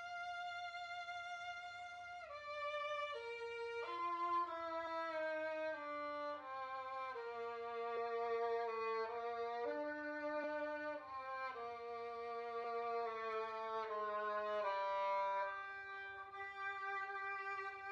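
Solo violin bowed in a slow melody of long held notes, the first held about two seconds and the rest changing every second or so.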